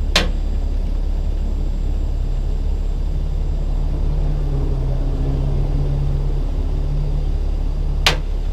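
Kenworth heavy-duty rotator wrecker's diesel engine running with a steady low rumble. Two sharp clanks, one just after the start and one near the end.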